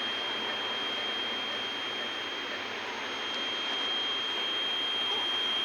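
Steady hiss of running equipment with a continuous high-pitched tone over it.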